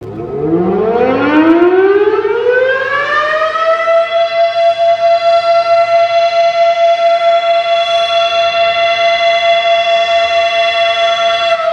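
Federal Sign & Signal Model 7 tornado siren winding up over about three and a half seconds to a steady high tone, held with a regular waver in loudness. It just begins to wind down at the very end.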